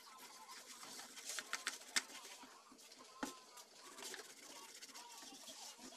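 A CRT TV circuit board being cleaned with lacquer thinner: faint, scattered clicks and light scrubbing, with a sharper knock a little over three seconds in.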